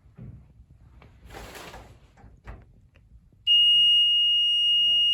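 Float-switch high-water alarm for a sump pump sounding: a loud, steady, shrill single tone that comes on suddenly about three and a half seconds in, after some faint handling noise.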